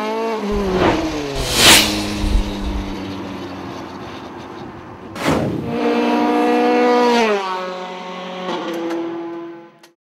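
Formula 3 race car engine at speed, its pitch falling in several steps, with two sharp whooshes of a car passing close about two and five seconds in. The sound cuts off just before the end.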